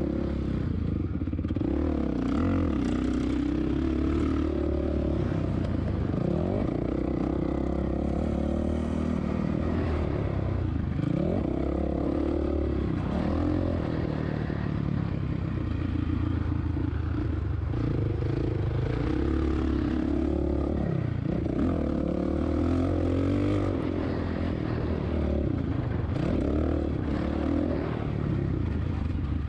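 2007 Suzuki RM-Z450's four-stroke single-cylinder engine being ridden hard on a motocross track, its revs rising and falling again and again as the throttle is opened and shut.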